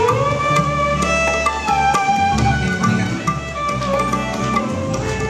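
Live band music: a melody that slides between notes over a drum rhythm.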